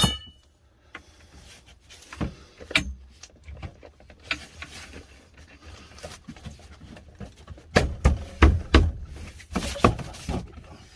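Greenhouse shelving parts being handled and fitted together: a sharp knock at the start, then scattered knocks and clunks, with a quick run of them near the end.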